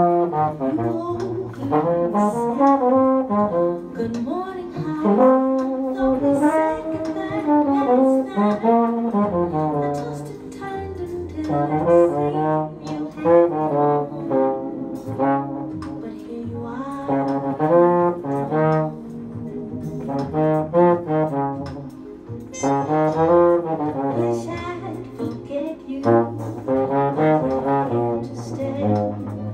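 Solo valved brass horn played unaccompanied in practice: melodic jazz phrases with pauses between them, no backing.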